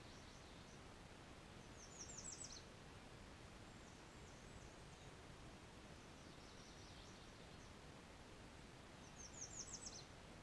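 Small bird giving two short runs of rapid, high, down-slurred notes, about two seconds in and again near the end, with fainter high twittering between, over a faint steady background hiss.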